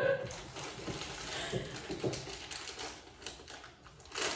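Irregular light clicking and rustling as hands fumble at a package that she cannot get open, with a louder rustle near the end.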